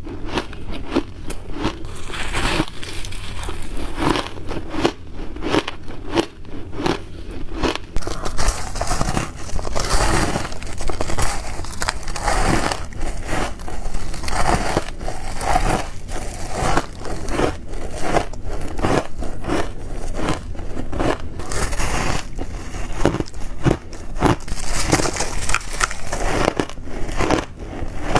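Ice and freezer frost being bitten and chewed close to the microphone: a continuous run of hard, irregular crunches.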